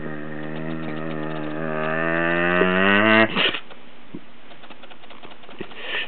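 A man's voice holding one long, low droning note, moo-like, that rises in pitch and grows louder before breaking off a little over three seconds in, ending in a short breathy burst. After it, a quiet room with a few faint clicks.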